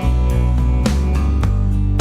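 Background music with guitar and a strong bass line, with notes struck at a steady beat.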